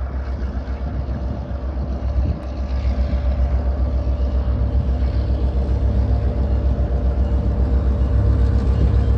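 Diesel locomotive engine running under load as it pulls a passenger train slowly forward, with a steady low throbbing beat, getting gradually louder as it draws near.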